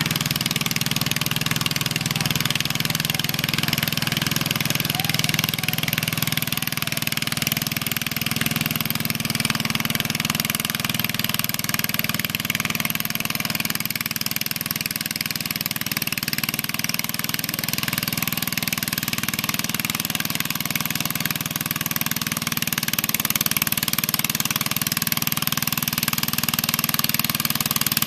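Garden tractor engine running steadily, getting slightly louder near the end.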